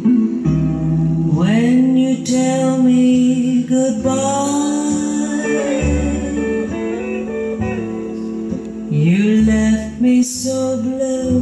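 A song with a singing voice, guitar and bass playing through a Scott 355R AM/FM stereo receiver, whose amplifier is being tested. Long held and sliding sung notes run over a steady bass line.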